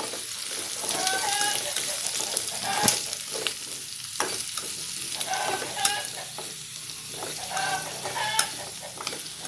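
Sliced vegetables stir-frying in hot oil in a pan, sizzling steadily, with a spatula clacking and scraping against the pan now and then.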